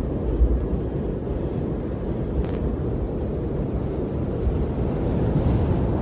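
Strong wind blowing against the microphone, a steady low rush with a stronger gust about half a second in.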